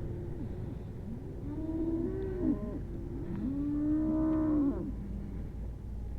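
Cattle in a herd on a drive mooing, several calls overlapping, with the longest and loudest call a little over a second before the calls stop.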